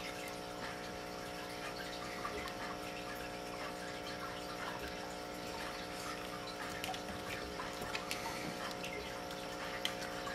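A steady mechanical hum, a small motor or pump running, with several fixed tones over a watery hiss, and a few faint ticks near the end.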